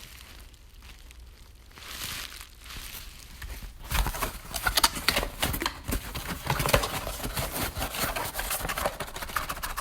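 Packaging being handled by hand. Faint rustling for the first few seconds, then from about four seconds in a dense run of crinkling and crackling.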